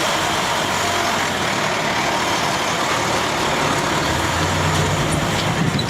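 Heavy vehicle engine running amid outdoor traffic noise, with a low hum that grows stronger about four seconds in.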